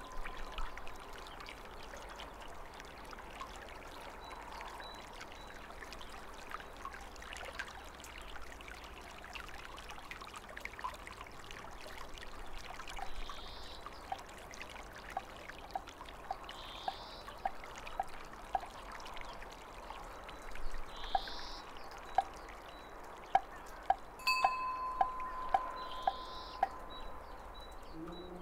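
Temple ambience of steadily trickling water, with a small bell ringing a long held tone at the start and again about 24 seconds in. From about halfway, a steady series of short knocks comes about two a second and grows louder near the end.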